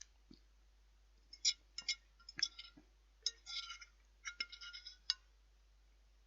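Cutlery clinking and scraping against a dish while eating: a run of irregular, light, ringing clinks starting about a second in.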